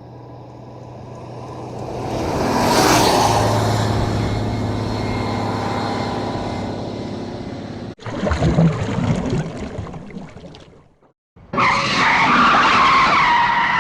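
Car sound effects in sequence: a vehicle sound rising to a peak about three seconds in and slowly fading, a cut at about eight seconds to another sound that dies away, then after a brief gap a loud tyre squeal with several high pitches at once.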